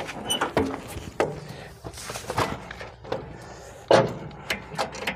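Scattered knocks and thumps with shuffling as a person climbs up onto a tractor and settles into its seat, with a sharper knock about four seconds in.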